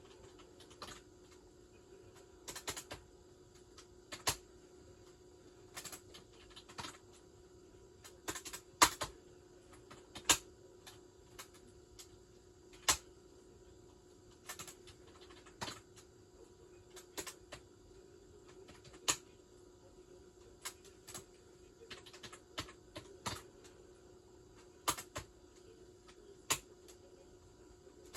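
Audio played back from the end of a VHS tape: a steady low hum with irregular clicks and pops, one or two a second and sometimes in quick clusters.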